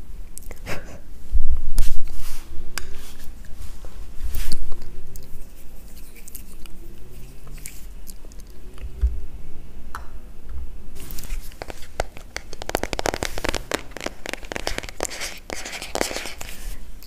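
Close-miked ASMR trigger sounds: scattered clicks and taps of handling, then about eleven seconds in a dense run of fast crackling that stops shortly before the end.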